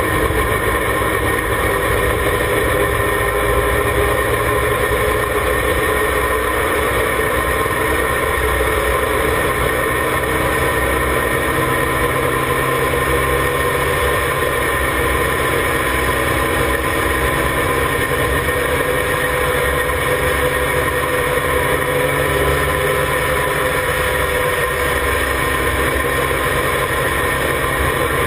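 Formula Mazda race car's rotary engine running at a steady, nearly constant speed while lapping, heard from on board with a dense rush of wind and tyre noise.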